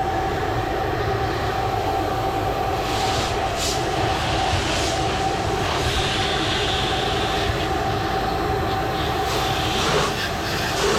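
Pressure washer running steadily: a constant rushing spray under a steady hum.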